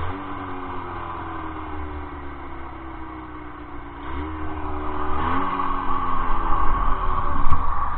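1978 Polaris Gemini twin-cylinder two-stroke snowmobile engine working in deep snow. Its note sinks slowly for the first few seconds as it labours under the load. About halfway through it is revved up sharply twice, then runs louder and harder as the sled ploughs and begins to bog down.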